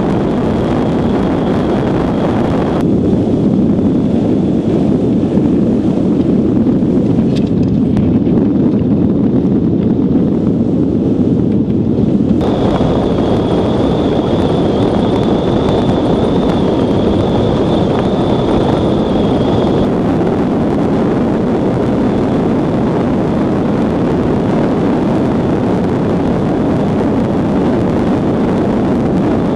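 Steady rushing wind and ice noise on a microphone riding on an iceboat sailing fast over black ice, with a faint thin high whine at times. The sound thins out abruptly about three seconds in and fills out again about twelve seconds in.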